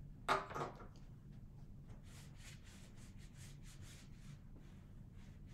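A brief voice sound at the start, then a whiteboard eraser wiping across the board in faint, repeated strokes, about three a second.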